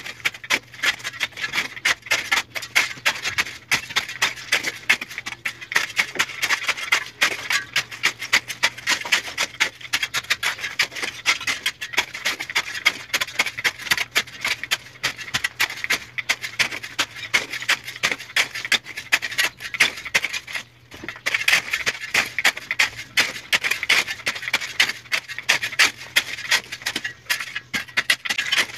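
Steel shovel blade scraping and digging through dry dirt and gravel in quick, repeated gritty strokes, with a brief pause about twenty seconds in.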